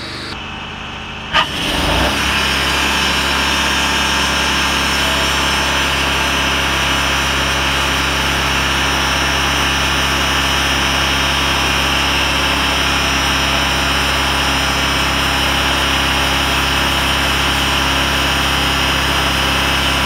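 Wood-Mizer LX250 bandsaw sawmill running. About a second and a half in there is a click, and the sound steps up to a louder, steady engine-and-blade drone with a high whine as the band blade saws crosswise through a redwood stump, cutting a cookie slab.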